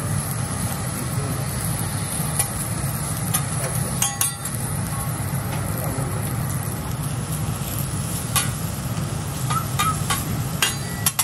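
Lobster halves sizzling on a steel teppanyaki griddle as a metal spatula and fork scrape and tap against the hot plate, with several sharp clicks. A steady low hum runs underneath.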